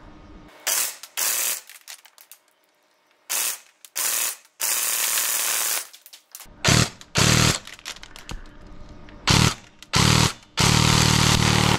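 Airsoft electric gun with a high-rate DSG gearbox (about 60 rounds a second) firing full-auto bursts of BBs into mesh goggles. There are about ten bursts, mostly short, with two longer ones of a second or more, one just before the middle and one at the end.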